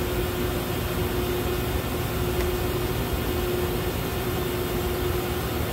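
Steady hum of a horizontal machining center standing under power: a constant mid-pitched tone over low rumble and hiss.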